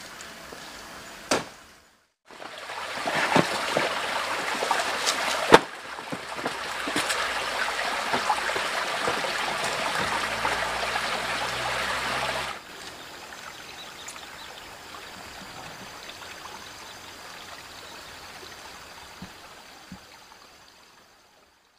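Stream water trickling and running over rocks in a rocky creek bed, louder through the middle and fainter near the end, with a few sharp knocks.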